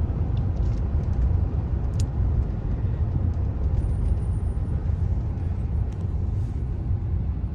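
Steady low rumble of a moving car's engine and tyres heard from inside the cabin, with a single sharp click about two seconds in.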